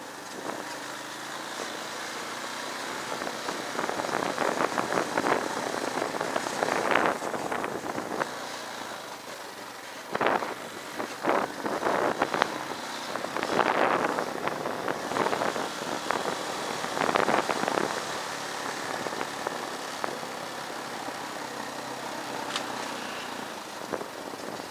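Motorcycle engine running as the bike rides a rough dirt track. Bursts of clattering and knocking come through in the middle of the stretch as it jolts over the bumpy ground.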